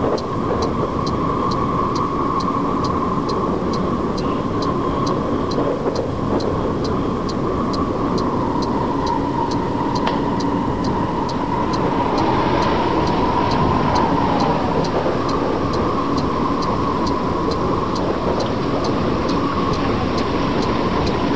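A steady mechanical rumble, like a running vehicle, with an even, sharp tick about twice a second.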